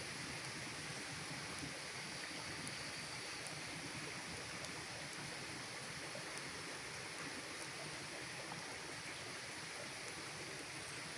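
Campfire burning: a steady hiss with a few faint, scattered crackles.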